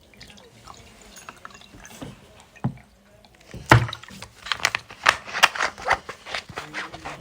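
Close-up eating sounds: after a quiet start, a quick irregular run of sharp crunching clicks begins about halfway in.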